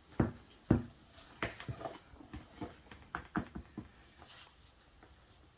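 A plastic measuring cup scooping and levelling flour: two sharp knocks near the start, then a run of lighter taps and scrapes of cup and spatula.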